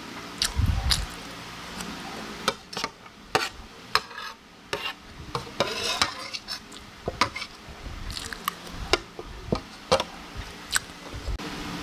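Cutlery clinking and scraping on a plate while eating: many sharp clicks at irregular intervals, a low thump about half a second in and a longer scrape near the middle.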